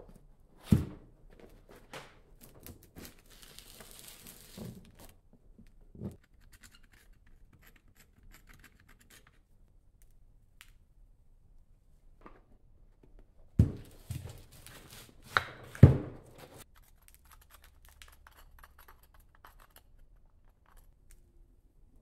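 Sand-casting mold halves being knocked and pulled apart, with packed sand crumbling and scraping. One loud clunk comes about a second in and three loud knocks a little past halfway, with quieter scraping and rustling between.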